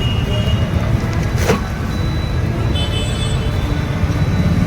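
Road traffic running past: a steady low rumble of engines and tyres, with one short sharp sound about one and a half seconds in and a few brief high tones around three seconds in.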